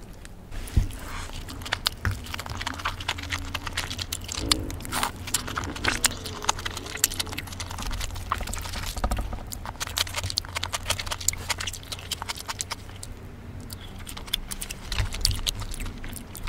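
Close-miked eating sounds of a cheeseburger being chewed: many short wet clicks and smacks from the mouth, with soft squishes. A low steady hum runs underneath.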